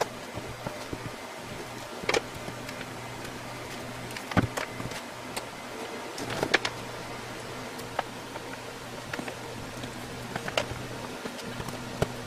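Scattered knocks and clicks of tools and electrical equipment being handled while old solar gear is taken off a wall, over a steady electrical hum. The loudest knocks come about two, four and six seconds in.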